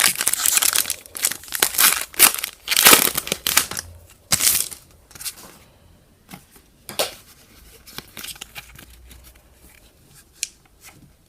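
Foil Pokémon booster pack wrapper crinkling and tearing as it is opened, loud for the first four or five seconds, then only faint, scattered handling noises.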